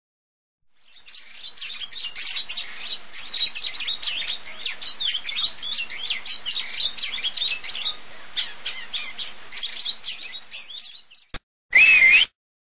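Many small birds chirping and singing together, fading in and cutting off suddenly about eleven seconds in. Just after it come a click and a short, loud, high-pitched sound that wavers in pitch.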